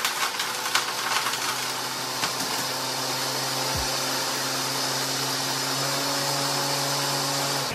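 Countertop blender running steadily, blending strawberries, pineapple and ice, and cutting off at the very end.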